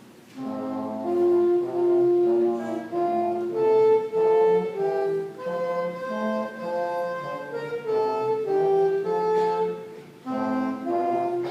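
Middle school concert band of woodwinds and brass playing sustained chords, coming in about half a second in, with a brief break just before the end and then starting again.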